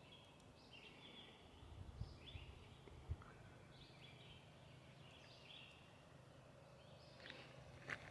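Faint songbird singing in the woods, a run of short, quick whistled phrases repeated every second or so, with a couple of soft footstep thumps on the trail.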